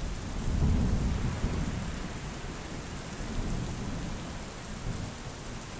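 Steady rain with a roll of thunder that starts suddenly, is loudest about a second in, and rumbles away over the next few seconds.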